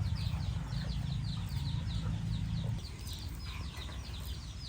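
Chickens calling: a rapid run of short, high, falling chirps, about four to five a second. A low rumble runs under it and stops about three seconds in.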